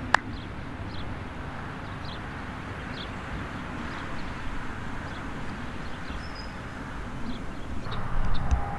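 A single hand clap right at the start, then steady outdoor background noise with faint, short, high chirps scattered through it.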